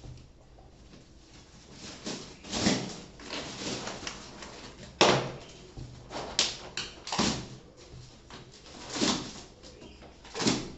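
Plastic packaging of a mattress being handled and pulled at: irregular rustling and scuffing swishes, with a sharp knock about five seconds in.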